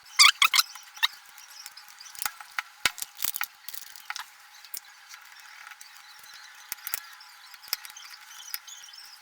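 Clicks and light taps from handling the speaker's small parts: a quick cluster of sharp clicks in the first second, then scattered clicks over a faint hiss. The sound is thin, with no low end.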